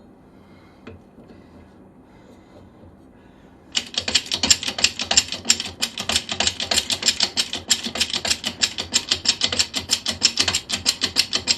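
Rapid, steady mechanical clicking from a tool being worked, about nine sharp clicks a second, starting about four seconds in.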